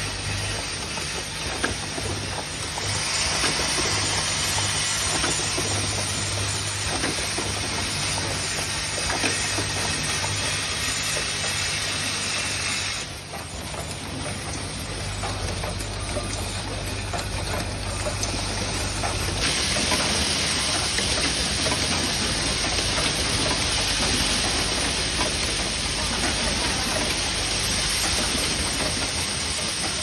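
Automatic hydraulic hinge assembly machines running: a steady hiss full of small rapid clicks and rattles of parts, over a low hum that stops about two-thirds of the way through. The sound changes abruptly a few times as the shots change between the machines.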